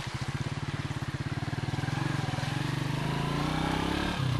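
Motorcycle engine running while under way, its pitch rising steadily over the second half as it speeds up, then dropping just before the end.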